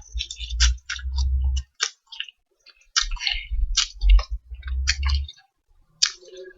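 Someone eating spicy instant noodles close to the microphone: two stretches of slurping and mouth noises with wet clicks, each a second or two long, with a pause between them.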